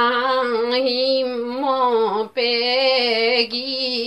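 A woman singing a Limbu palam unaccompanied, in long, wavering held notes, with a short breath about two seconds in.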